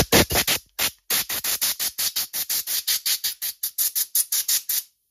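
Rapid short bursts of compressed air from an air-compressor blow gun, about seven a second, blowing old fuel and dirt off a carburettor. The bursts cut off suddenly near the end.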